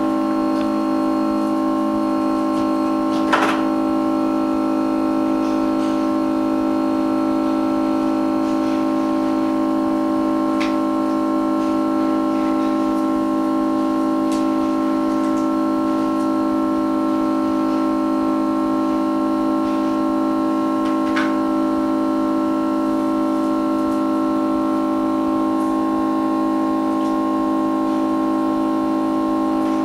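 Background music: a held keyboard or synthesizer chord, steady throughout, with a few faint clicks.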